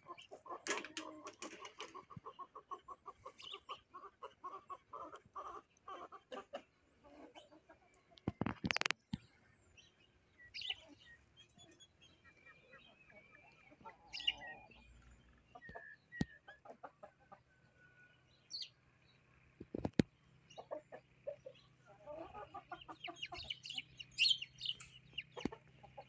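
A flock of hens clucking in short, irregular calls, with a quick run of repeated clucks in the first few seconds and another busy stretch near the end. A brief louder noise about nine seconds in stands out.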